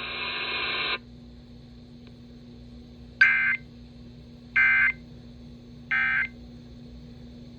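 Emergency Alert System end-of-message code: three short, identical bursts of shrill digital data tones, each about a third of a second long and about 1.4 s apart, marking the end of the alert. A steady background tone cuts off about a second before the first burst.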